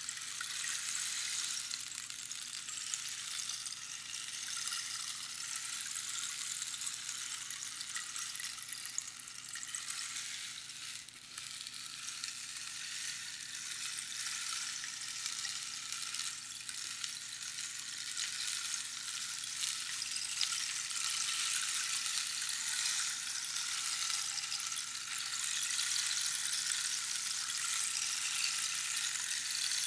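Rainstick pouring: a steady, dense patter of small pebbles trickling down past the pins inside the hollow cactus tube, like light rain. It thins briefly about eleven seconds in and then fills out again.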